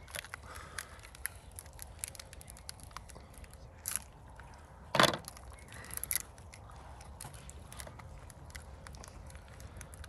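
Campfire crackling, a steady scatter of small snaps and pops, with a louder sharp crack about five seconds in.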